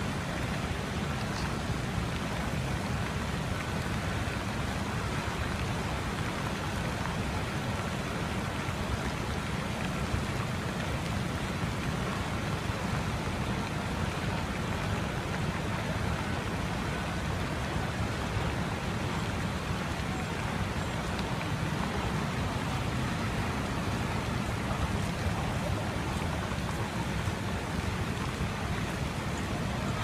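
Fountain jets spraying into a lake, giving a steady, even rushing of falling water over a low rumble.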